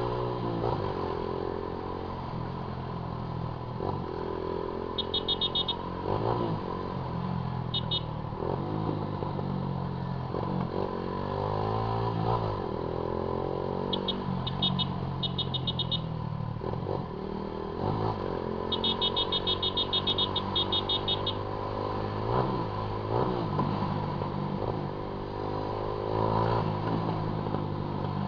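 Honda CG Titan 150 single-cylinder motorcycle being ridden with a loud exhaust, its revs climbing and dropping back again and again as it changes gear. Several short runs of rapid high-pitched beeping come through, the longest about two-thirds of the way in.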